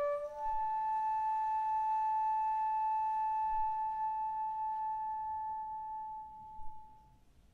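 A shakuhachi (bamboo end-blown flute) steps up from a lower note to one long held note, clear and nearly pure, that fades out near the end.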